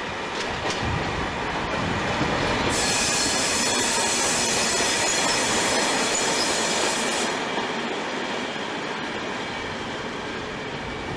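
DB Class 216 diesel-hydraulic locomotive running past at close range, engine and wheels on the rails heard together, with a loud hiss that swells for about four seconds in the middle as it goes by.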